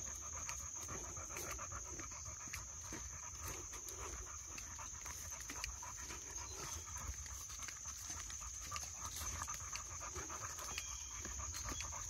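Two boxer dogs panting as they walk on leash, with scattered small clicks of steps on the trail and a steady high-pitched hum underneath.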